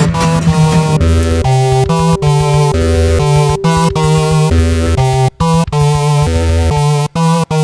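Instrumental electronic music: synthesizer chords chopped into a fast, stuttering rhythm over a deep bass, with a long held note through the middle and a few sudden brief dropouts near the end.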